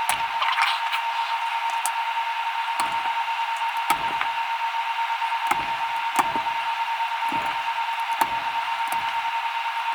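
Mechanical keyboard switches being pressed into the Keychron Q6's plate: irregular clicks and knocks, about one a second, over a steady hiss and a high, steady hum.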